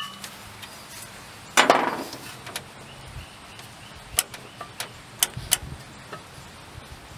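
Metal handling noises from an engine's mechanical cooling fan being worked loose from the water pump pulley after its last bolt is out: a short scraping noise about one and a half seconds in, then scattered sharp clicks and clinks.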